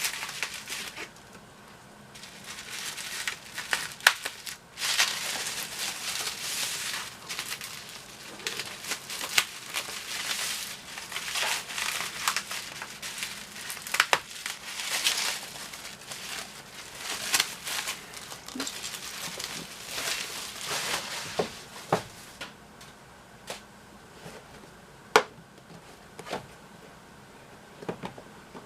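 Packing material crinkling and rustling as a shipping box is unpacked by hand, with many sharp clicks and taps of handling. The rustling dies away after about 22 seconds, leaving only occasional taps.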